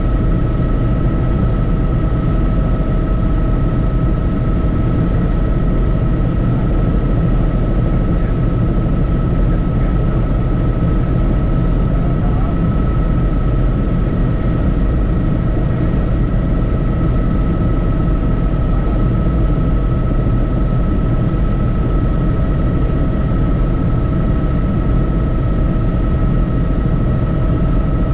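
Helicopter in flight: a loud, steady rotor and engine drone, a deep rumble with a constant high whine on top that does not change.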